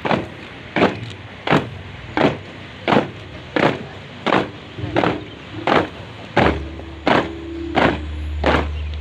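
A column of ceremonial marchers stamping their boots on pavement in unison, one sharp footfall roughly every 0.7 seconds in a steady marching rhythm. A steady low hum joins about two-thirds of the way through.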